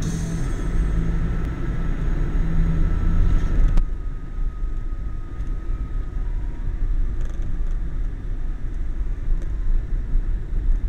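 Car driving slowly on a snow-covered road, heard from inside: a steady low rumble of engine and tyres. The higher sounds drop away suddenly about four seconds in.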